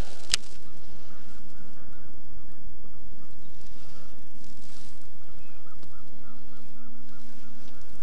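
Waterfowl calling in the distance over an even background hiss, with a quick run of short repeated calls near the end. A single sharp click comes about a third of a second in.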